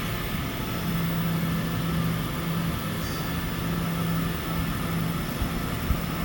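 Steady machine hum with a hiss behind it, typical of a laser welding setup running. A low hum drops out briefly a few times.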